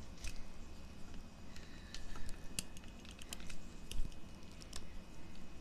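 Handling noise from a phone camera being moved and set down: a scatter of light clicks and taps, with a low thump about four seconds in.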